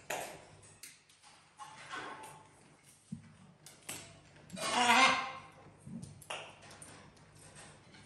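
Caique parrots calling: a string of short, sharp chirps and clicks, with one loud, longer squawk about five seconds in.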